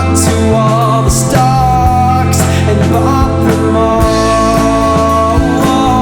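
Psychedelic rock song playing: long held melody notes over a changing bass line and regular drum hits.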